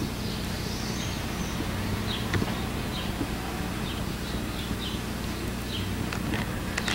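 Faint, short high-pitched chirps at irregular intervals, over a steady low hum and tape hiss.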